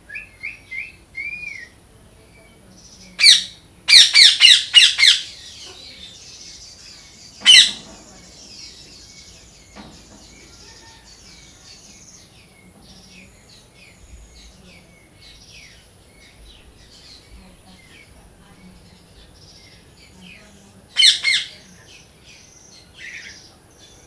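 Green parakeet giving loud, harsh screeching calls: a single call about three seconds in, a rapid run of about five just after, another near eight seconds and a pair about twenty-one seconds in. Fainter short, high chirps carry on between them.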